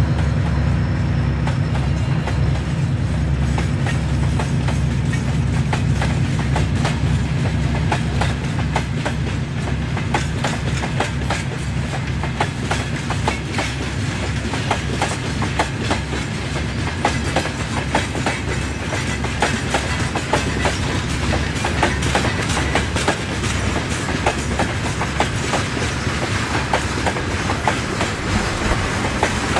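Freight wagons rolling past, their wheels clicking over the rail joints in a quick repeating clickety-clack over a steady low rumble.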